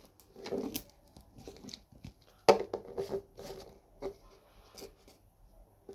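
Toy packaging being torn open and crinkled by hand in irregular bursts, the loudest a sudden one about two and a half seconds in.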